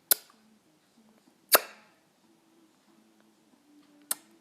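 Three sharp cracks, each dying away quickly: one right at the start, a second about a second and a half in, and a weaker one near the end.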